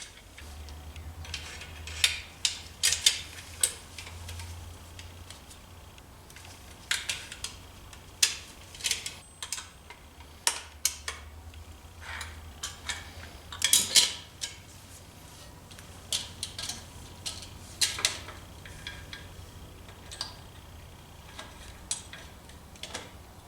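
Metal clinks and ticks of wrenches and fasteners as a moped's exhaust is fitted to the cylinder, in irregular clusters, over a faint low hum.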